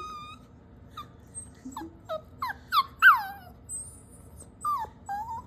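A dog whining in a string of short, high-pitched whimpers that slide down in pitch, the loudest about three seconds in. The whining is its answer to being scolded, the 'sounds of guilt' of a dog caught with socks it wasn't supposed to have.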